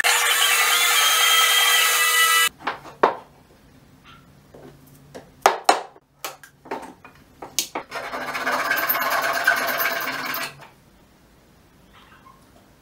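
A small power tool runs with a steady whine for about two and a half seconds and stops. Then come sharp clicks and snaps as fret wire is cut with end nippers, followed by another two-second stretch of tool noise and faint scraping near the end.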